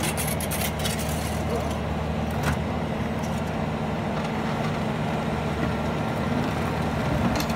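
Bobcat skid-steer loader's diesel engine running steadily at a constant speed, with a planer attachment on its front.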